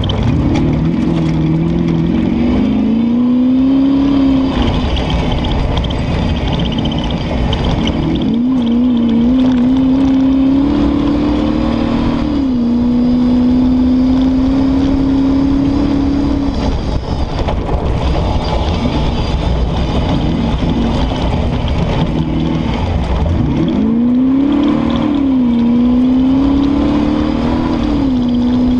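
Competition safari off-road car's engine, heard from inside the cabin, pulling hard over rough ground. Its pitch climbs and holds, then drops and climbs again several times, over a constant low rumble.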